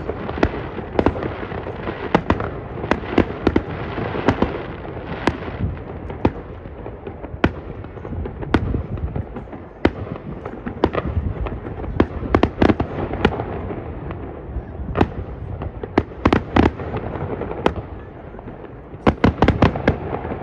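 Aerial fireworks display: irregular sharp bangs from bursting shells over continuous crackling, with a quick cluster of bangs near the end.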